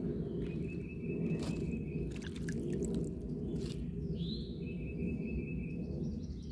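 Romaine lettuce leaves being lifted out of and dropped into a plastic tub of water, giving a few splashes and knocks over a steady low outdoor rumble. Twice a bird calls: a short rising note running into a long steady whistle.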